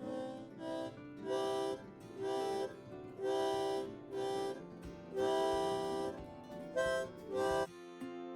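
Instrumental intro music: held chords in short phrases, switching near the end to a strummed guitar.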